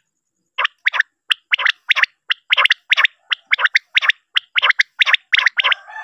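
Male common quail calling: a rapid series of short, sharp notes repeated over and over after a brief pause at the start.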